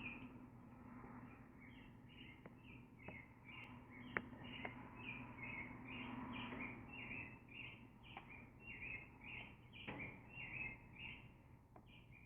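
A bird chirping over and over, short calls at about two to three a second, faint, over a steady low hum with a few soft clicks.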